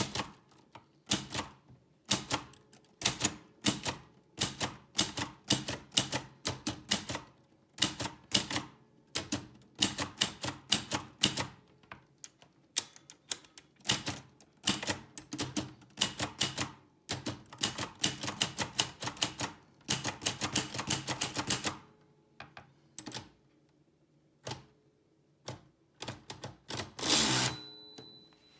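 Typewriter typing: rapid runs of type strikes and key clacks with short pauses between bursts, over a faint steady hum. Near the end there is a longer rasping stretch and a short ringing tone.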